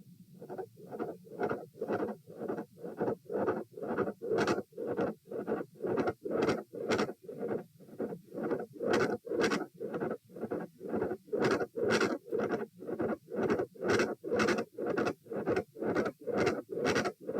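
Heartbeat sounds picked up through a probe on the chest, pulsing regularly at about two and a half beats a second. They come back in strongly about half a second in, after a brief drop-out, as the probe is moved to a new position.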